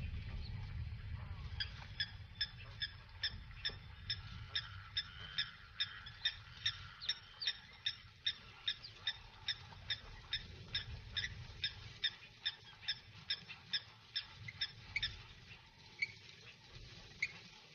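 Guineafowl calling in a steady series of short, sharp notes, about two to three a second, thinning out near the end. A low rumble underneath fades away in the first part.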